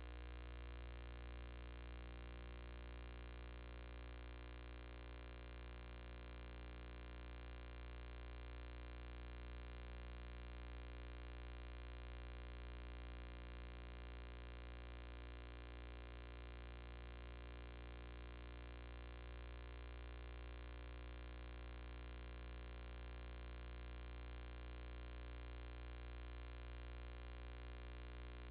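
Steady electrical hum with many overtones, unchanging throughout.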